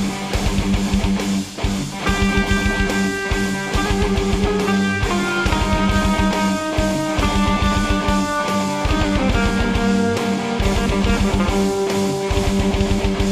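Improvised rock jam on guitar and drum kit: a steady drum beat under guitar notes. From about two seconds in, the guitar holds its notes, changing pitch every second or so.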